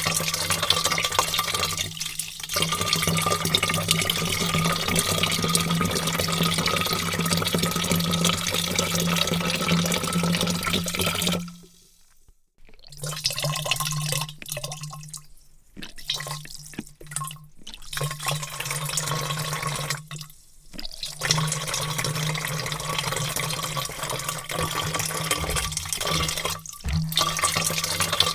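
A heavy stream of water pouring into a large vat, with a steady splashing rush and a low hum under it. Near the middle the pour stops for about a second, then falters and breaks off briefly several more times.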